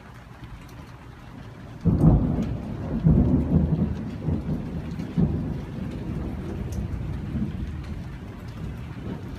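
A clap of thunder breaks suddenly about two seconds in and rolls on with two more surges, slowly fading, over steady rain.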